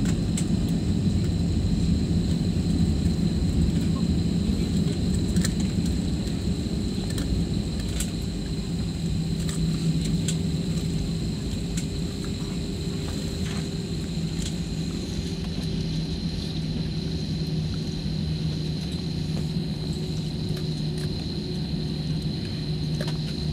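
Cabin noise of an Airbus A320-family jet rolling out on the runway just after landing: a steady rumble of engines and wheels that eases off partway through as the aircraft slows, with a faint steady high whine and light cabin rattles.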